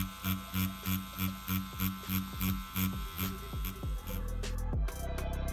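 Hummingbird Bronc wireless rotary tattoo machine buzzing as it shades with a magnum needle cartridge, pulsing about four times a second. Background music comes in about four seconds in.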